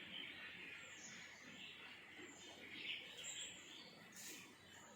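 Near silence, with faint, short bird chirps in the background.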